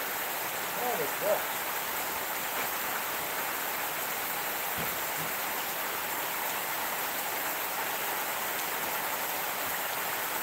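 Steady rain falling, a continuous even hiss. About a second in, a short pitched call or voice rises above it.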